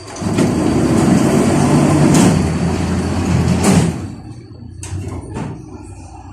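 Folding doors of a KTM-5A tram working for about four seconds and shutting with a bang, followed by two sharp clicks.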